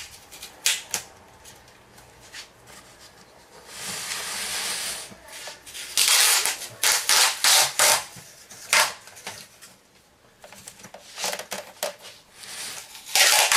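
Roll of green adhesive tape being pulled off and wrapped around a wooden frame's edge: a longer rasp about four seconds in, then a run of short, sharp rips of tape peeling from the roll, about a second apart, over the second half.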